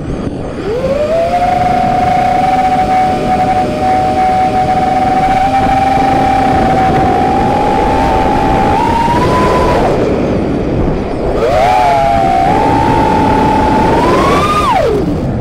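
FPV racing quadcopter's four T-Motor F40 II 2400 kV brushless motors and props whining, heard from the onboard camera. The pitch holds steady, climbs about nine seconds in, drops off briefly, then rises again and climbs sharply near the end before falling away as the throttle changes.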